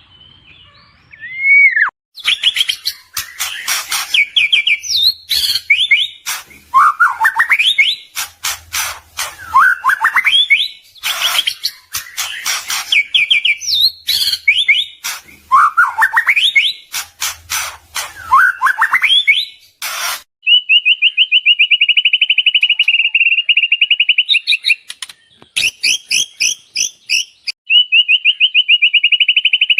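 White-rumped shama (murai batu) in full song: a loud, varied run of rising whistled sweeps mixed with short harsh notes. About two-thirds of the way through it changes to long, fast trills, with a brief break before the trill starts again near the end.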